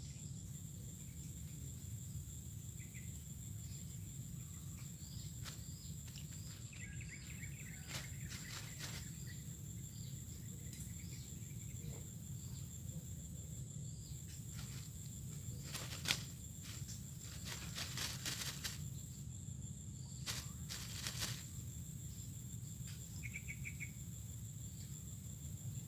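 Insects droning on one steady high note, with a few short bird chirps and scattered sharp clicks. The loudest click comes about two-thirds of the way through, and small clusters of clicks follow.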